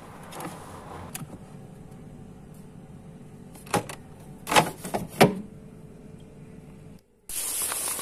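Plastic food containers knocking and clacking against a refrigerator shelf as they are put away, a few sharp knocks in the middle over a faint steady hum. After a sudden cut near the end, a tap runs water into a stainless steel sink with a steady hiss.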